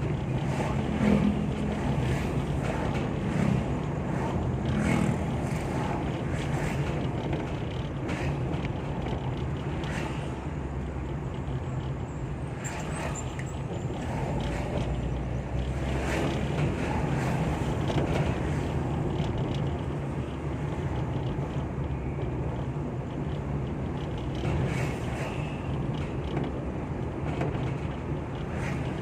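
Ambulance on the move: steady engine and road noise with a low hum, and scattered light clicks.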